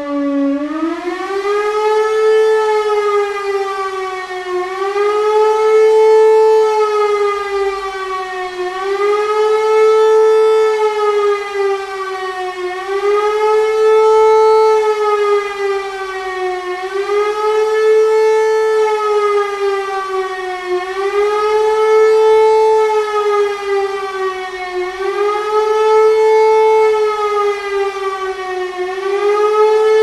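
Elektror L1 air-raid siren, a World War II-era motor siren, sounding the German civil-protection warning signal: a loud howl whose pitch rises and falls about every four seconds. Its pitch climbs steeply in the first two seconds as the rotor comes up to speed.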